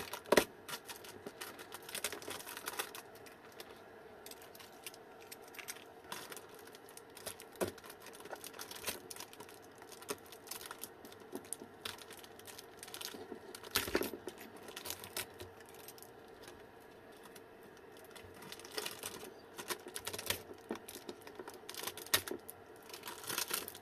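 Scattered light clicks and taps from hands handling the opened plastic casing and parts of an e-bike rack battery pack, with the sharpest knock about halfway through and a small cluster near the end.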